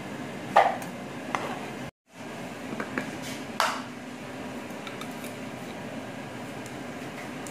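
Kitchenware clatter: a knife scraping and knocking on a plastic cutting board and a ceramic dish, the loudest knock about half a second in, then after a brief cut a few sharp clinks of a glass jar being handled. A steady low hum runs underneath.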